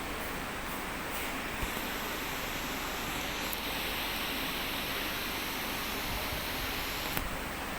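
Acson ceiling-suspended mini split air conditioner running: a steady rush of air from its fan, with a couple of faint clicks.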